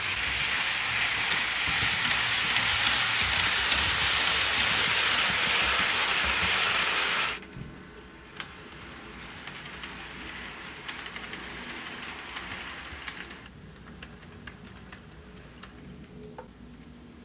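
HO-scale model train rolling along sectional track: a loud, steady rolling hiss that cuts off suddenly about seven seconds in, followed by quieter rolling with scattered light clicks.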